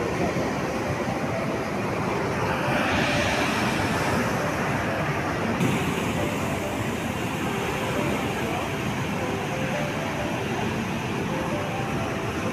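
Choppy sea waves surging and foaming, a steady rushing noise of surf that changes abruptly about halfway through.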